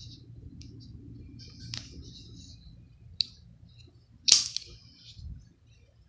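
Switchblade-style folding knife's blade snapping open with one sharp metallic click about four seconds in, after two smaller clicks.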